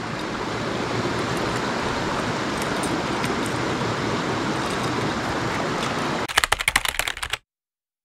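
Mountain stream water rushing steadily. About six seconds in there is a quick run of rapid clicks lasting about a second, then the sound cuts off abruptly.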